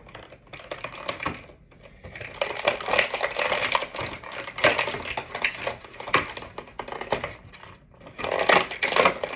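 Clear plastic toy packaging crinkling and crackling as it is handled and pulled open by hand, in dense bursts with short lulls about two seconds in and near the end.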